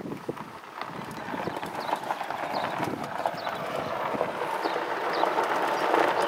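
Golf cart rolling over gravel, with a patter of small knocks and crunches from the tyres and body over a steady running noise that grows louder as the cart picks up speed.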